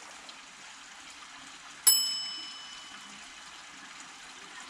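A single bright metallic ding about two seconds in, ringing out and fading over about a second, over a faint steady hiss.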